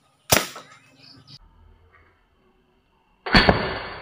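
Two sharp bangs about three seconds apart from a homemade PVC alcohol-fired toy gun shooting 5.5 mm steel balls at a matchstick target. The second bang is louder, with a longer fading tail, and one of the shots knocks a matchstick out of the target.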